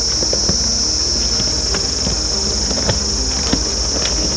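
Steady high-pitched shrill of insects, the loudest sound, over the low rumble of a Jeep Wrangler's engine as it crawls over rocks, with scattered sharp clicks of stones crunching under the tyres.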